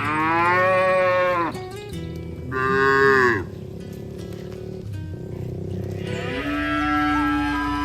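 Cattle mooing: three long moos, one at the start that rises and falls, a shorter falling one about two and a half seconds in, and a long, level one near the end.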